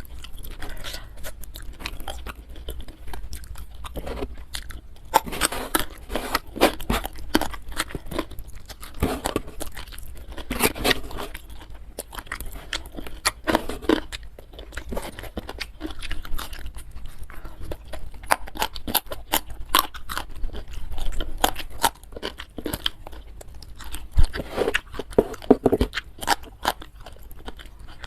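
Close-miked chewing and crunching of food in the mouth: a steady, irregular run of crisp crunches and wet smacks.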